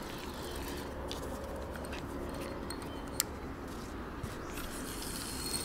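A few light clicks from handling a spinning reel on a fishing rod, over a steady low outdoor background.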